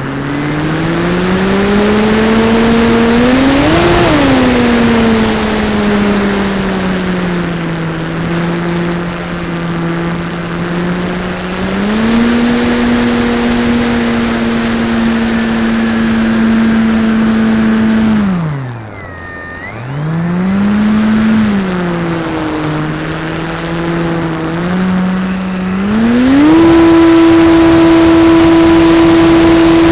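Motor and propeller of a radio-controlled model airplane, heard up close from under the plane: a steady drone whose pitch rises and falls with the throttle. It sinks low and quiet about two-thirds of the way through, then climbs back and holds at its highest and loudest pitch near the end.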